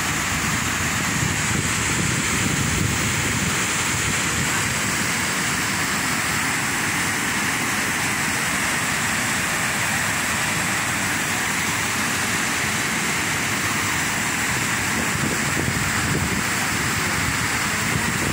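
Waterfall: falling water rushing steadily and evenly, with no let-up.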